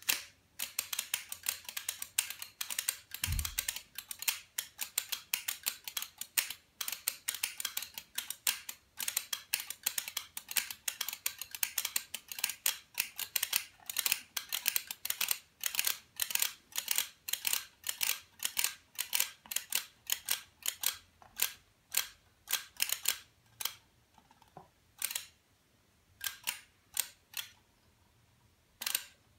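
Electromechanical relays of a time-delay relay circuit clicking on and off rapidly and irregularly, several clicks a second, thinning to sparser clicks with pauses in the last few seconds. A single low thump about three seconds in.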